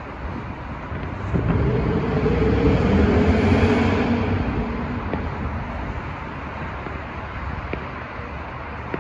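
A motor vehicle driving past, its engine and tyre noise swelling about a second in and fading away over several seconds. Steady street noise continues underneath, with a few faint distant fireworks pops.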